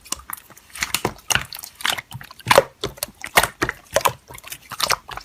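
Slime being pressed and kneaded by hand: a quick, irregular run of wet squishing clicks and pops, several a second.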